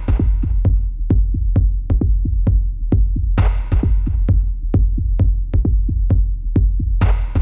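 Electronic background music with a steady drum-machine beat and heavy bass, with a hissing swell rising briefly every few seconds.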